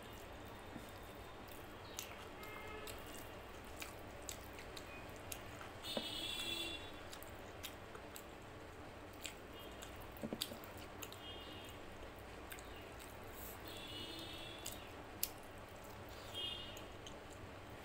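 Quiet eating sounds of rice and mutton curry eaten by hand: soft wet chewing, with small clicks and squishes as fingers knead the rice on the plate. A few short high-pitched chirps come now and then.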